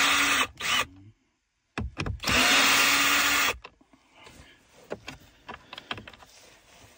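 Cordless drill/driver spinning out the small screws that hold the radio display in the dash, in two short bursts: one stopping just after the start, the other about two seconds in and lasting just over a second. Faint clicks of handling follow.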